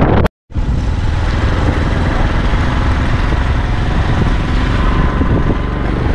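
Two-wheeler ridden along a road: its engine running steadily under wind noise on the microphone. The sound drops out for a moment just after the start, then carries on unchanged.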